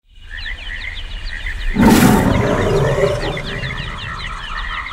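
A steady chorus of rapid, high chirping frog calls, with a loud roar bursting in about two seconds in and fading away over the next second or so.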